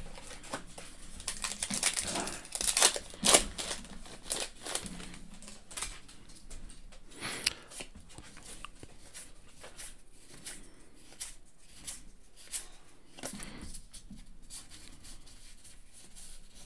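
A trading card pack's wrapper is crinkled and torn open in the first few seconds. Then a stack of baseball cards is thumbed through by hand, card by card, with light irregular clicks.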